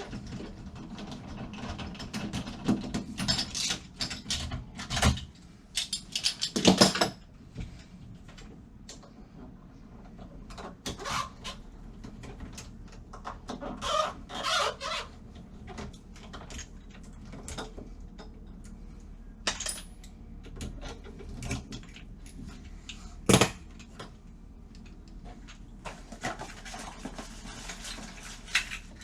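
Irregular metallic clicks, clinks and knocks of door lock hardware and tools being handled, with a few short squeaks.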